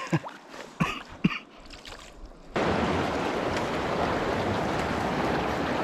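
A few short knocks, then the steady rush of shallow river water running over rocks starts abruptly about two and a half seconds in and continues evenly.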